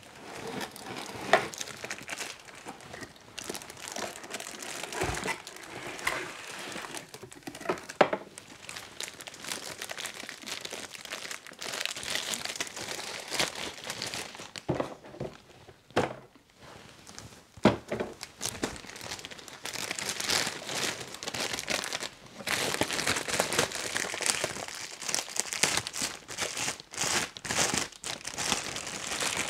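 Clear plastic bag crinkling and rustling as a handheld vacuum is slid out of its cardboard box and unwrapped, with a few sharp knocks of plastic and cardboard.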